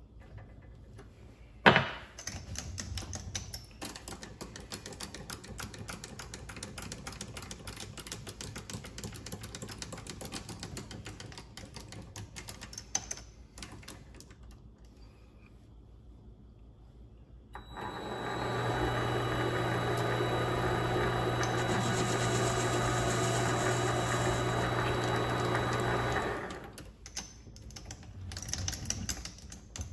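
Vevor MX400 mini lathe running while facing round stock. There is a sharp knock about two seconds in, then quieter running with a fine ticking. Near the end of the second half the motor and spindle run louder and steadily for about nine seconds, with a low hum and a thin high whine, then stop abruptly.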